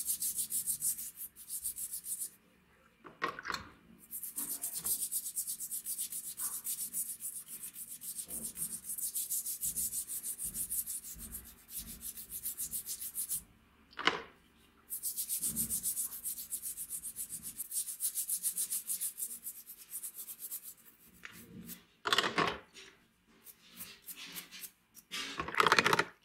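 Toothbrush bristles scrubbing a straight razor in soapy water: fast, even back-and-forth strokes that stop twice for a moment. Splashes and sloshing come in between, loudest near the end as the razor is swished in the tub.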